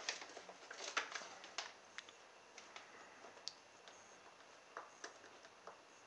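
Faint, scattered small clicks and taps from hands handling a home-made model boat's lolly-stick frame and polystyrene hull, a few each second at irregular spacing; the boat's pump is not running.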